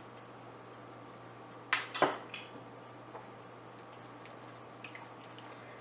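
A kitchen utensil clatters sharply against a nonstick pan about two seconds in, followed by a few faint ticks and scrapes as a silicone spatula stirs thickened milk in the pan. A steady low hum runs underneath.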